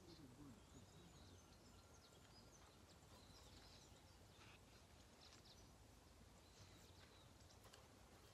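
Near silence: faint outdoor ambience with a few scattered faint, high chirps of distant birds.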